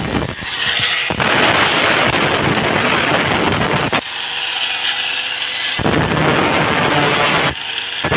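Motorcycle engine running loud and raw through a cut-down silencer, with rapid exhaust pulsing; the sound shifts abruptly several times as the throttle is blipped.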